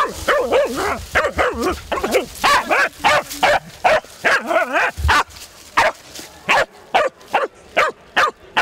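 Small wire-haired blood-tracking dog barking and yelping rapidly, about two to three calls a second, at the wild boar it has tracked down at the end of the trail.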